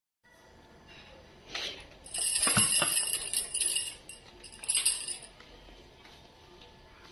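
Light metallic jingling, like small bells shaken, in a burst of about two seconds starting about two seconds in and a shorter burst near five seconds, after a soft knock.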